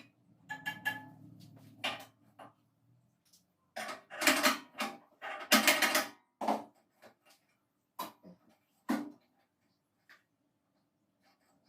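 Irregular clicks, knocks and clattering scrapes, heaviest about four to six seconds in, from hands working on a small bandsaw's parts and blade during a blade change; the saw's motor is not running.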